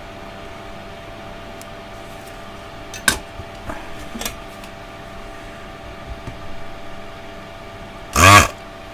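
Steady hum of a small bench fan drawing away solder flux fumes, with a few light clicks and taps of tools on the circuit board. Near the end, a short loud burst of voice.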